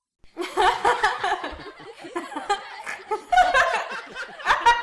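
A person laughing on and on, starting just after a short silence.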